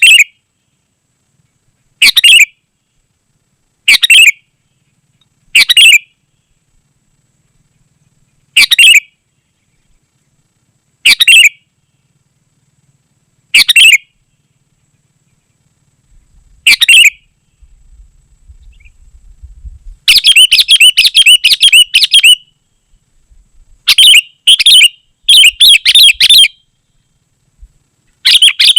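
Sooty-headed bulbul calling: short, loud chirping phrases about every two seconds, breaking into rapid runs of repeated phrases in the last third.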